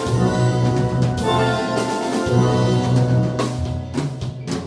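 Steel band playing: many steel pans sounding chords and melody together, with a drum kit keeping time under them and several sharp drum strikes.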